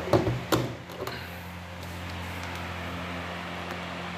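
Hotpoint tumble dryer door pushed shut, giving several sharp knocks and clicks within the first second, then the dryer running with a steady low hum after its new heater element has been fitted.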